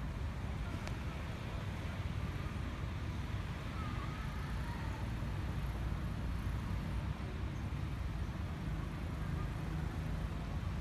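Steady low rumbling background noise, with a faint wavering tone about four seconds in.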